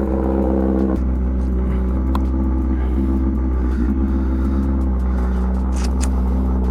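Kawasaki ZX-10R's inline-four engine idling steadily after a cold start, warming up. It runs loud, as this bike does when cold-started.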